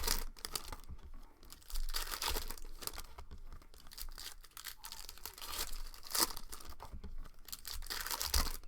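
Foil trading-card pack wrappers crinkling and tearing, with irregular rustles and a few louder crinkles, as the packs are opened and handled.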